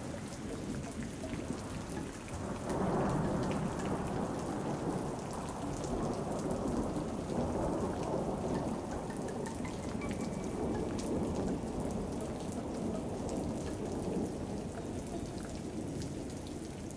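Steady rain with rolling thunder, a dense hiss of rainfall under a low rumble that swells about three seconds in.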